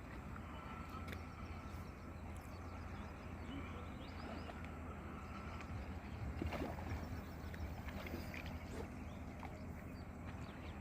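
Steady outdoor background noise with a low rumble, a few scattered small clicks and faint high chirps.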